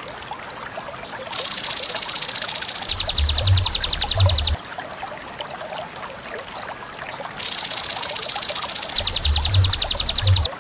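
Recorded animal call played back for song training: a loud, rapid buzzing trill lasting about 3 s, its pulse turning coarser halfway through, heard twice about six seconds apart over a faint steady background of natural sounds.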